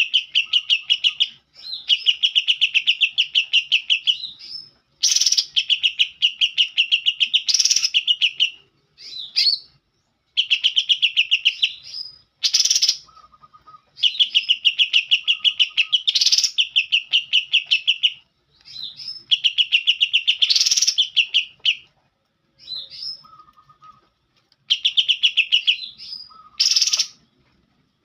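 Green leafbird (cucak ijo) singing a fill of kapas tembak song: phrase after phrase of fast, even trills, each a second to a few seconds long with short pauses between, broken by a few sharp, loud notes and short lower whistles.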